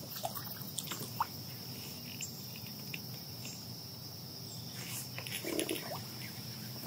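Steady, high-pitched chirring of a cricket chorus, with a few faint clicks and knocks over it.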